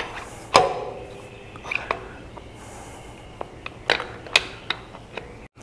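Scattered light metallic clicks and knocks as a distributor is twisted and pushed down into a small-block Chevy 350's intake manifold, hunting for the oil pump drive shaft so it will seat. The loudest knock comes about half a second in, with a short ring.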